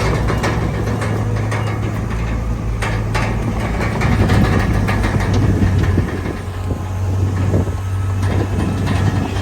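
Crawler bulldozer's diesel engine running steadily, with the clanking and squeaking clatter of its steel tracks as it moves and pushes soil.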